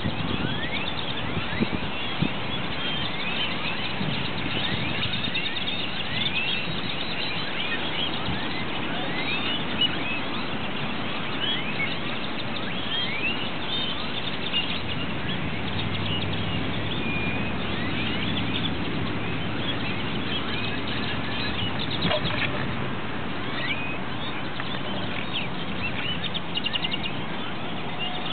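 Chorus of a large flock of purple martins calling as they gather to roost: many short rising chirps overlapping throughout, over a steady background noise with a low hum.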